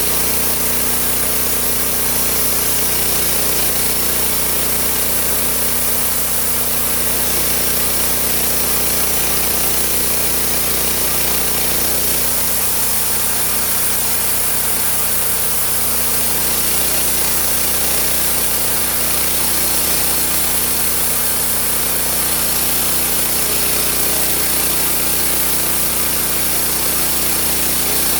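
Homemade engine-driven sawmill running steadily under power, engine and saw sounding together without a break.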